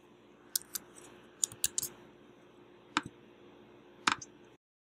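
A series of short sharp clicks on a computer over faint room hiss: a couple early on, a quick cluster around a second and a half in, then single clicks at about three and four seconds. Shortly after the last click the sound cuts off to dead silence as the screen recording is stopped.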